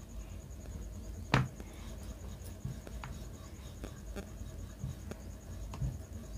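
Wooden rolling pin rolling out a stuffed paratha on a rolling board: soft rubbing with one sharp knock about a second and a half in and a few fainter taps after it.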